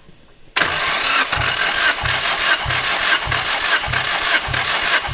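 Nissan Silvia S14's SR20 engine being cranked on the starter motor for a compression test, starting abruptly about half a second in. It churns steadily with an even low pulse roughly every 0.6 s.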